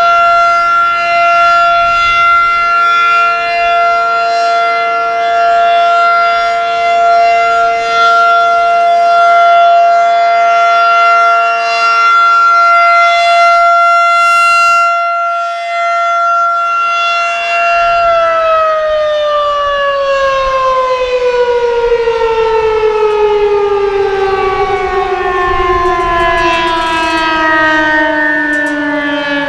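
Federal Signal 2001-SRN rotating electromechanical outdoor warning siren sounding its steady Alert tone. About 18 seconds in the signal ends and the siren winds down, its pitch falling steadily.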